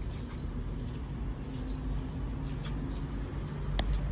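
Sunbird chirping: a short, high, rising chirp repeated about once a second. A sharp click sounds near the end, over a steady low hum.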